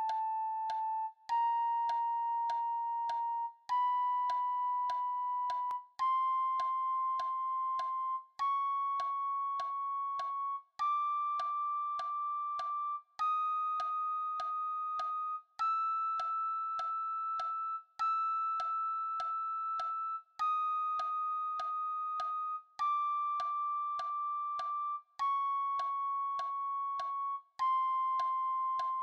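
Six-hole ocarina playing a chromatic scale, one clear held note about every two and a half seconds, climbing a semitone at a time and then stepping back down. A light, regular tick keeps time under the notes.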